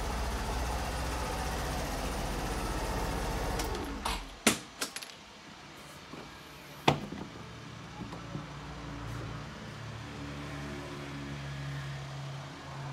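Kawasaki J125 scooter's single-cylinder engine idling with a steady low rumble, then switched off about four seconds in. This is followed by a few sharp plastic-and-metal clicks from the key and the seat lock, the loudest near seven seconds in as the seat latch releases.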